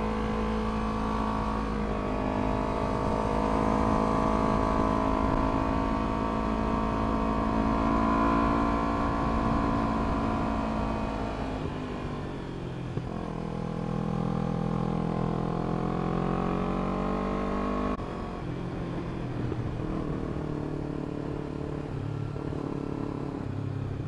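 Kawasaki Ninja 300 parallel-twin engine with an aftermarket exhaust, running under way. Its note climbs slowly, drops sharply about halfway through, climbs again, and changes once more about three-quarters of the way in.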